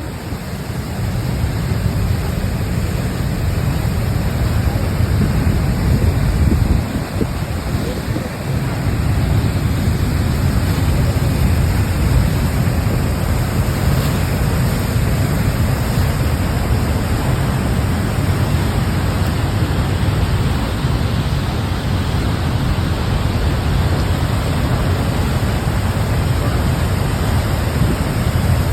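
Steady rush of water pouring over the dam, heavy in the low end, dipping briefly about seven seconds in.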